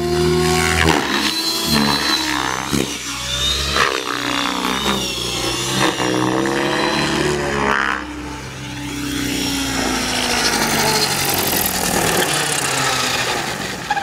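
Radio-controlled model helicopter in flight: the motor and rotor whine rises and falls in pitch as it manoeuvres, dipping briefly about eight seconds in.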